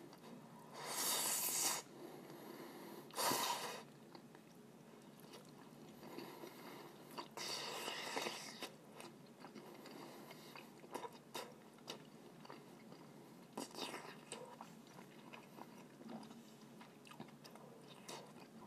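Close-miked eating of instant noodles: several loud slurps of noodles, each about a second long, with soft chewing and wet mouth clicks between them.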